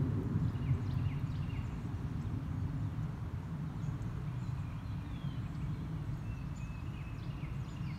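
Outdoor lakeside background: a steady low rumble, with faint, short bird chirps now and then.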